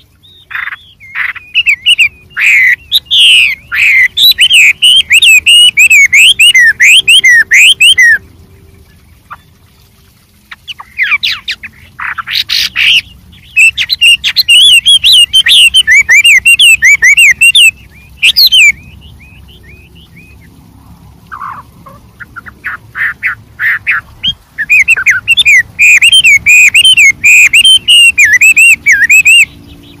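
Chinese hwamei singing a loud, rapid song of constantly varied whistled phrases in three long bouts, with short calls and pauses between them.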